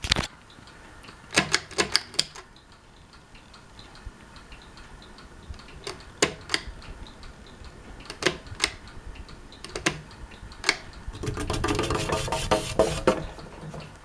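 Regency Oasis ceiling fan running on medium speed, with irregular sharp clicks and ticks. About eleven seconds in comes a dense two-second burst of clicking and rattling.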